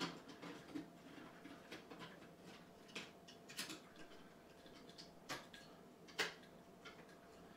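Faint, scattered clicks and light handling noise, about five in all, as a flat ribbon cable and its connector are fitted onto an Amiga 600 motherboard.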